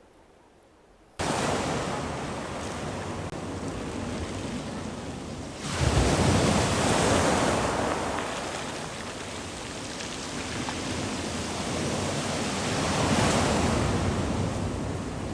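Sea waves breaking and washing up on the shore. The sound starts abruptly about a second in, then swells loudly with a wave crash about six seconds in and another near the end.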